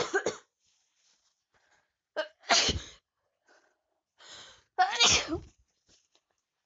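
A person with a head cold sneezing three times in a row, about two and a half seconds apart. Before the second and third sneezes there is a short gasping in-breath.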